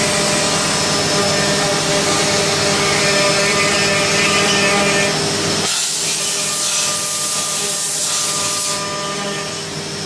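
Mazak VTC-300C CNC vertical machining center running a cut, a steady whine of several tones over loud cutting noise. About six seconds in the lower cutting noise drops away, leaving a high hiss for about three seconds.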